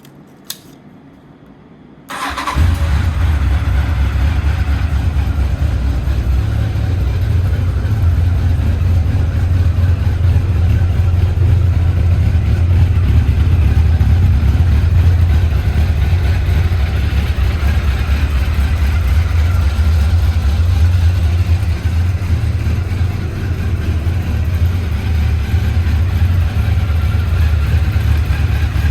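A click about half a second in, then about two seconds in a Honda CB1000SF's inline-four engine is started and settles into a steady idle through an aftermarket carbon silencer.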